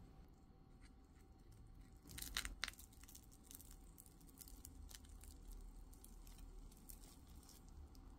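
Crisp garlic toast being torn apart by hand: faint crackling of the toasted crust, with a louder crunchy tear about two seconds in.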